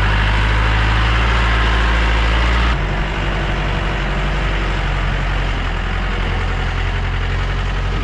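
Safari jeep's engine running at low speed over a rough dirt track, a steady low drone with road and rattle noise above it. About three seconds in the sound changes abruptly: the higher noise drops away and the engine note turns rougher.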